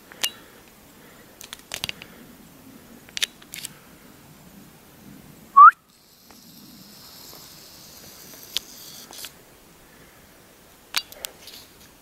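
Scattered footsteps snapping twigs and crunching dry forest litter on a slope. A brief, very loud rising squeak sounds about five and a half seconds in, and the sound then cuts out for about half a second.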